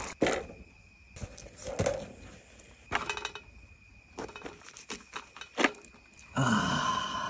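Scattered sharp clicks and taps, about a dozen spread over several seconds, over a steady high-pitched insect trill.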